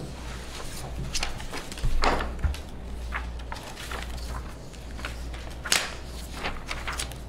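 Sheets of paper being leafed through and turned: a run of irregular rustles and swishes, the loudest about two seconds in, over a low steady hum.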